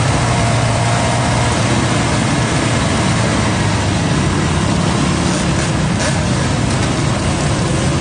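Motorcycle and ATV engines running at low speed in a group ride, heard from a sport bike, under a loud, steady, noisy rush.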